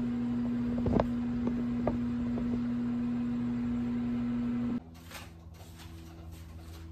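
Over-the-range microwave oven running, a steady electrical hum with a few light clicks about a second in. The hum cuts off abruptly near the end, leaving a quieter kitchen background with faint taps.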